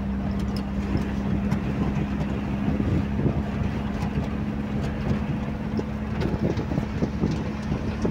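Vehicle engine and tyre noise heard from inside the cab while driving over desert ground: a steady drone with a low rumble and a few light clicks and rattles.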